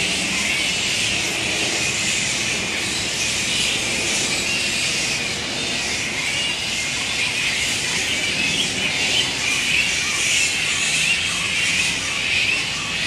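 Grey-headed flying fox colony at its roost: a dense chorus of many overlapping high-pitched screeches and chattering calls, steady in level.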